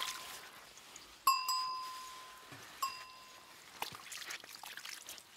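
Two clear, bell-like metallic rings, each struck sharply and fading over about a second, over a faint trickle of creek water. Near the end there are small clicks of stones being handled.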